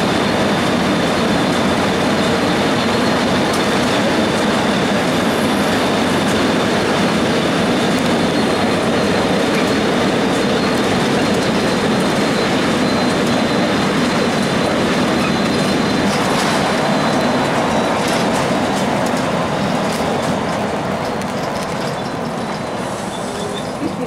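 Inside a 2002 Blue Bird CS transit bus with a Cummins ISC diesel, cruising at highway speed: a loud, steady rumble of engine, tyres and wind with a thin high whine. It eases off over the last few seconds as the bus slows.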